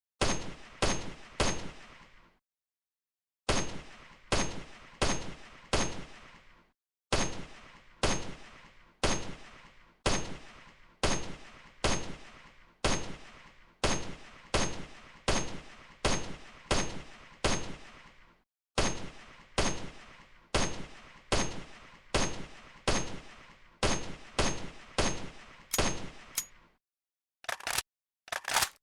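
AKM assault rifle firing repeated single shots in runs of several at a time, each shot sharp with a short decaying tail, the runs separated by brief silent gaps. Near the end come a few shorter, sharp sounds.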